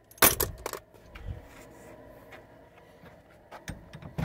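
Loose metal tools and parts clanking and scraping as they are handled and shifted, with a cluster of sharp clanks in the first second and scattered small clicks after. Two clunks near the end, the last as the truck's interior door handle is pulled.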